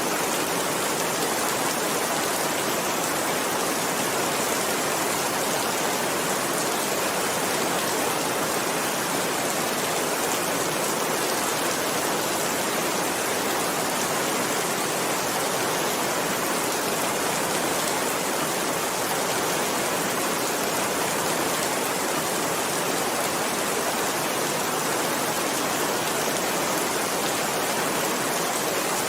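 Steady heavy rain, an even hiss with no breaks or changes.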